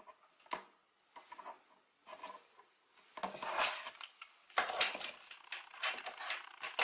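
Small clicks and rubbing of a plastic pulley being worked onto the shaft of a small DC toy motor. There is one click about half a second in, then denser clicking and scraping from about three seconds on.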